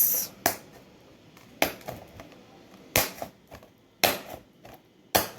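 Plastic cling film stretched taut over a glass bowl being punctured by a utensil's tip, five sharp pops about a second apart, each one a small steam vent hole.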